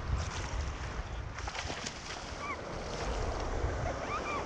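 Wind buffeting the microphone over sloshing sea water around a fishing kayak, a steady rush with a low rumble. A few faint, short, high chirps sound about a third of the way in and again near the end.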